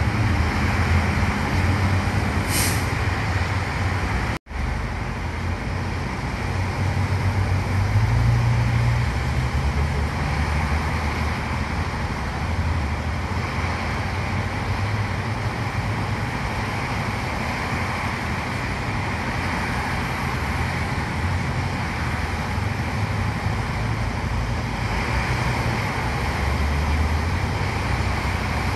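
Steady traffic on a wet highway: tyres hissing on the rain-soaked road over the low hum of many engines. A short high hiss sounds about two and a half seconds in, and the sound drops out for an instant about four seconds in.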